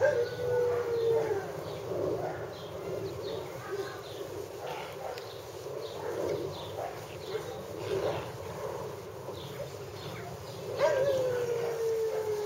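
Hungarian Vizsla puppies playing tug-of-war, with many short yaps and cries. Two long cries fall slowly in pitch, one at the start and one near the end.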